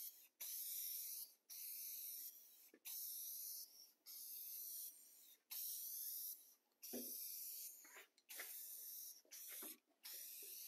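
Aerosol can of matte lacquer spraying in short hissing bursts, roughly one a second with brief pauses between, coating the laser-cut edges of a wooden sign.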